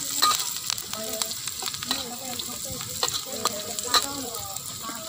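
Sliced shallots, garlic and dried anchovies sizzling in hot oil in a wok, with a metal spatula scraping and clinking against the pan as they are stirred.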